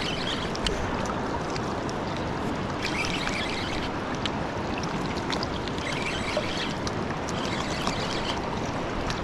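Steady rush of river current.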